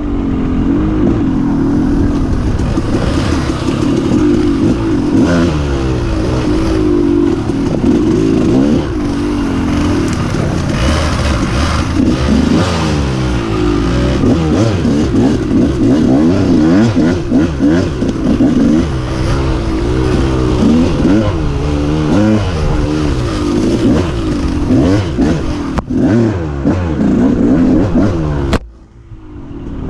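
Two-stroke dirt bike engine on a woods trail ride, revving up and down constantly through gear and throttle changes. The sound cuts away suddenly near the end, then returns.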